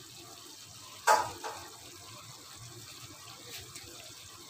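Tofu and tempeh simmering in a turmeric broth in a pan, a soft steady bubbling. About a second in comes a single sharp clack, the loudest sound, with a smaller one just after.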